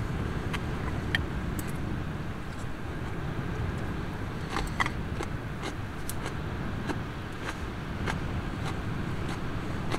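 Light clicks of chopsticks against a metal mess tin and a wooden bowl while eating, with a small cluster about halfway through. Under them runs a steady low rumble of wind.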